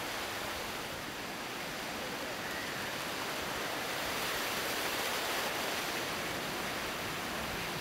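Ocean surf breaking and washing around the shallows: a steady rush of waves that swells a little midway.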